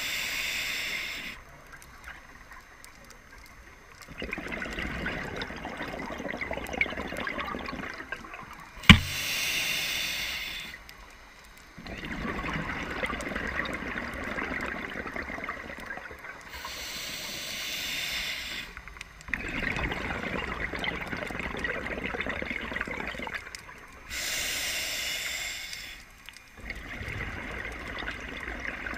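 Scuba diver breathing through a regulator underwater: a hiss on each inhale, then a longer rush of bubbling exhaust bubbles on each exhale, about four breaths in all. One sharp knock about nine seconds in is the loudest sound.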